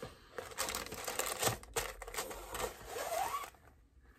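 A ribbon being untied and drawn off a cardboard gift box, with rustling and a zip-like swish as it slides free. There is a rising swish about three seconds in, and the sound dies down near the end.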